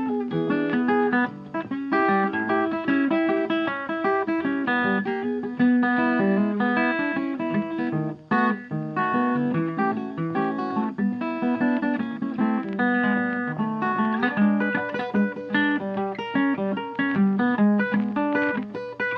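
Background music: plucked guitar playing a busy, rhythmic piece.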